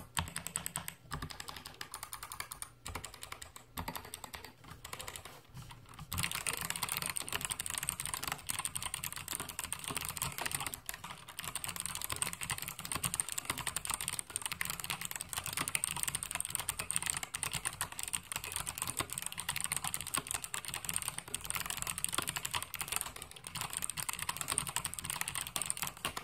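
Typing on an Achon AK87 mechanical keyboard with clicky Kailh BOX White switches, each keystroke a crisp click. The strokes are sparser at first, then become fast, continuous typing from about six seconds in.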